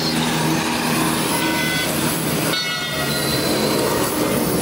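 Steady hiss of an oxy-acetylene gas welding torch against loud street traffic noise. A vehicle horn sounds in the middle.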